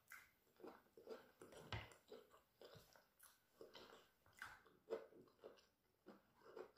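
Faint, close-miked chewing with the mouth closed: soft wet smacks and small clicks that come irregularly, roughly two a second.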